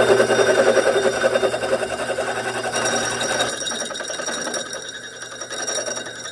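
Power tool working a thick steel steering arm, with a fast, even chattering rattle that is loudest for the first three and a half seconds, then eases off.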